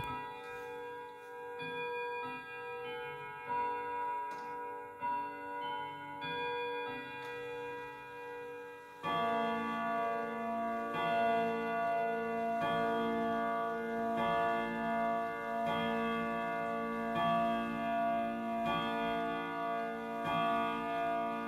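German Hermle triple-chime wall clock playing the last phrases of its quarter-hour chime melody. About nine seconds in it goes over to slow, evenly spaced hour strikes on a deeper, louder tone, about one every second and a half, each ringing on into the next. The hands stand at about twelve o'clock.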